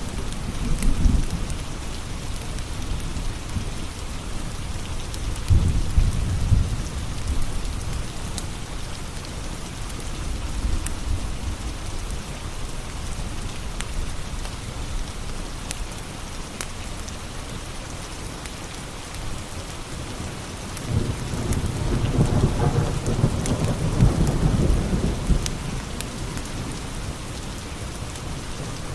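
Steady rain with low rolling thunder, swelling near the start, again around six seconds in, and longest from about 21 to 26 seconds. A wood fire crackles over it in sparse sharp clicks.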